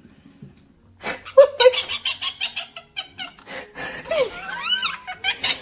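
Pet parrot chattering: a rapid run of clicks and harsh notes starting about a second in, then a few whistled calls that rise and fall in pitch near the end.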